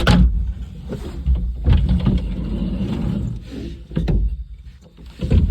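A sharp knock as the phone is set down, then clunks, knocks and a low rumbling rattle as the front windshield of a John Deere 75G excavator cab is unlatched and pushed open, with another knock about four seconds in.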